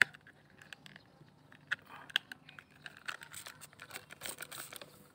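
Irregular dry crackling and sharp clicks of handling noise, with one loud click at the start and a denser patch of crackle about four seconds in.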